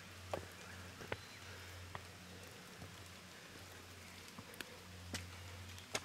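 Faint wet-forest ambience: a steady low hum and soft hiss with a handful of sharp, irregularly spaced taps and ticks.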